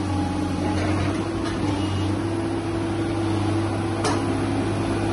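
Tata Hitachi crawler excavator's diesel engine running steadily while its hydraulic boom and bucket work a rock-and-rubble pile, a constant low hum with a faint click about four seconds in.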